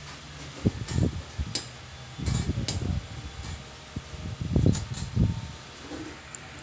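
Wire-mesh cage mouse trap being handled: a few groups of short knocks and rattles with sharp clicks, over a steady hum.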